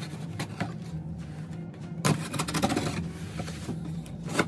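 Knife blade slitting the packing tape along a cardboard box's seam: short scraping and tearing strokes, a quick run of them about two seconds in, and a sharp knock near the end.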